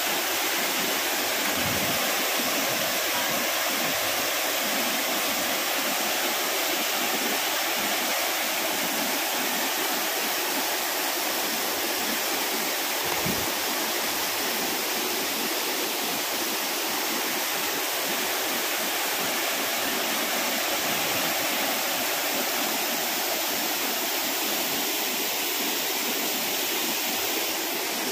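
Steady, even rush of a waterfall pouring over rock ledges into a pool.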